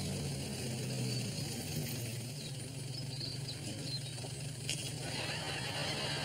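A black cab's engine idling steadily at the kerb, with a single sharp click about three-quarters of the way through.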